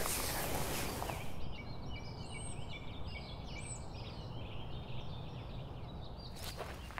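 Wild birds calling: a busy run of short whistled chirps and trills that starts about a second and a half in and stops shortly before the end.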